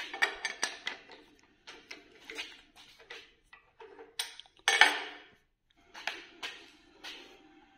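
Metal tools and parts clinking and knocking on a steel workbench in irregular clusters, the loudest cluster about five seconds in.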